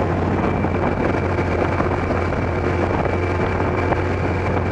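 Kawasaki ZX-12R's inline-four engine running at a steady cruise, with wind rushing over the helmet-mounted camera.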